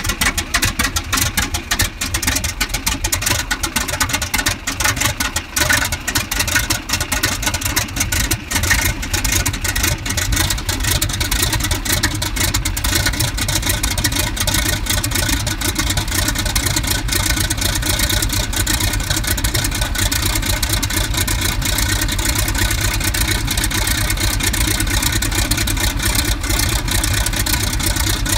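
Jacobs 300 hp seven-cylinder radial engine catching at the first start of the season and running at idle. It runs rough and uneven for about the first ten seconds, then settles into a steady idle.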